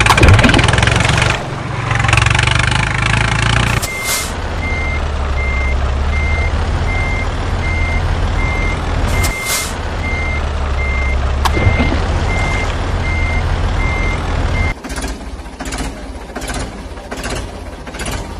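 A truck engine runs with a reversing alarm beeping at a steady pace, after a few seconds of louder engine noise at the start. Near the end the beeping stops and gives way to a rhythmic tractor-engine chug, about two beats a second.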